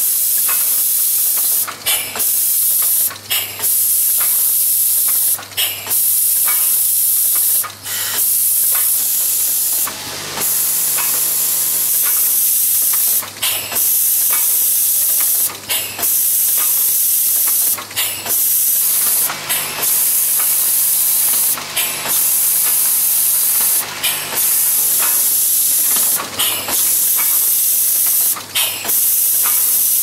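Automatic perfume filling and crimping machine running: a loud, steady hiss of air that breaks off briefly about every two seconds as the line cycles, over a low hum.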